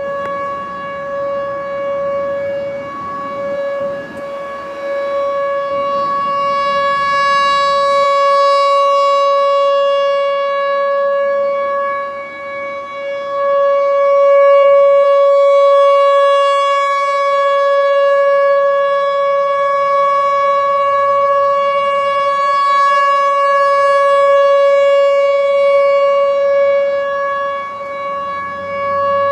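Outdoor tornado warning siren sounding a steady, unchanging tone during a siren test, its loudness slowly swelling and fading.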